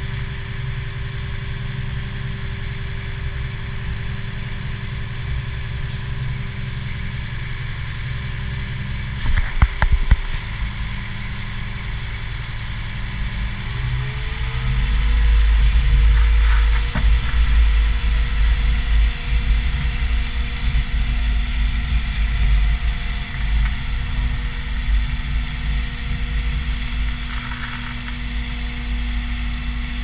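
Concrete pump truck's diesel engine running steadily, then revving up about halfway through as the hydraulic boom is raised, with a deeper rumble and a slightly higher whine from then on. A few sharp knocks a third of the way in.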